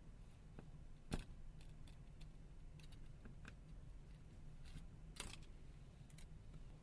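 Faint clicks and taps of small hand tools on a smartphone's internal parts during disassembly, with two sharper clicks about a second in and about five seconds in, over a low steady hum.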